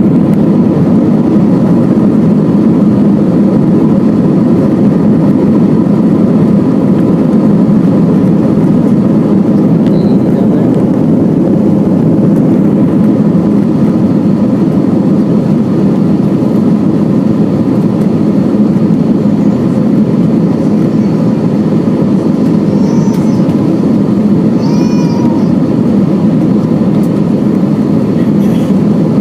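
Steady cabin noise of an Airbus A321 climbing out after takeoff, heard from inside the economy cabin: a loud, even rumble of engines and rushing air, with a few faint steady tones above it.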